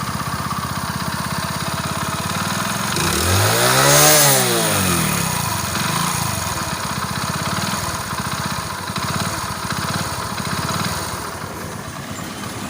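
Hero Splendor's 97cc single-cylinder four-stroke engine idling, revved once about three seconds in and falling back to idle, with a couple of smaller throttle blips later. Under the throttle it makes a heavy noise from inside the engine that the mechanic takes for piston noise.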